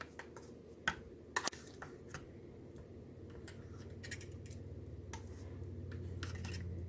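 Scattered light clicks and taps of a measuring cup and spoon against a yogurt tub and bowl while yogurt is scooped out, over a low hum that grows slowly louder through the second half.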